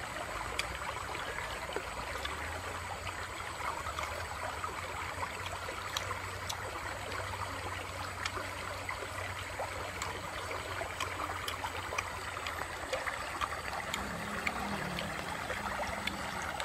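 Shallow stream running over stones, a steady babbling rush of water with scattered sharp clicks.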